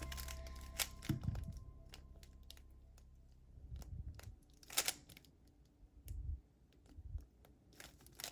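Rubik's speedcube being turned by hand: irregular plastic clicks and clacks as its layers snap round during a solve.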